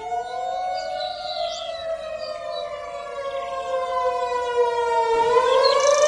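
Federal Signal 2001-DC outdoor warning siren sounding the Attack signal, a wavering tone: the pitch rises briefly, sinks slowly for several seconds, then starts climbing again about five seconds in.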